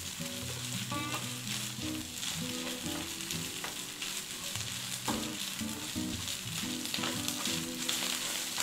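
Egg and bacon fried rice sizzling in a nonstick frying pan while a spatula stirs and scrapes through it, with scattered light clicks of the spatula against the pan.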